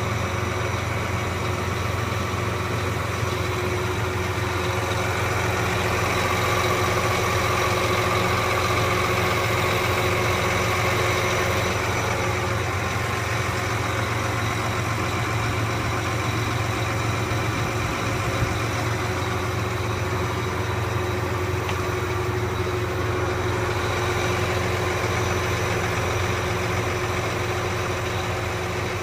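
Farm tractor engine running at a steady idle, heard from inside the cab, with a continuous low hum and steady tones throughout.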